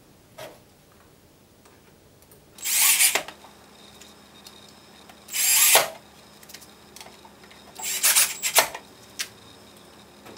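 Cordless drill with a Phillips bit driving in screws: three short runs, each under a second, about two and a half seconds apart.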